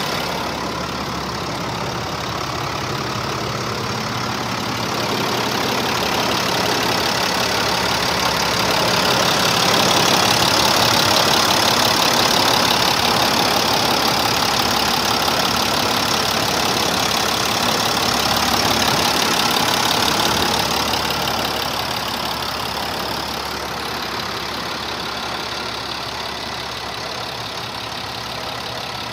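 International 4900 dump truck's diesel engine idling steadily, louder through the middle stretch.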